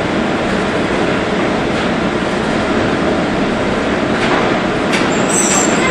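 PCC streetcar running along the track, heard from inside the car: a steady rumble of wheels and running gear, with a couple of light clicks and a brief high-pitched squeal near the end.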